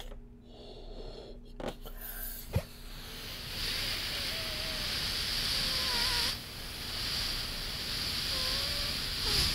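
Air hissing out of the neck of an inflated balloon as it is let down, with little squeaks from the stretched neck. It comes in two long releases, about three and a half seconds in and again near the end, after a few light handling taps.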